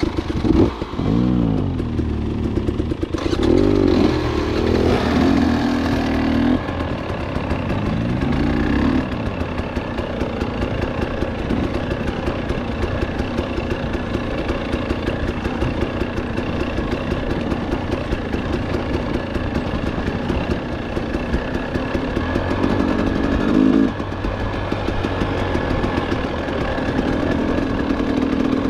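KTM 300 XC two-stroke dirt bike engine revving, rising and falling in pitch several times over the first nine seconds as the bike pulls away along a dirt trail, then running at a steadier pace, with a brief louder surge about 23 seconds in.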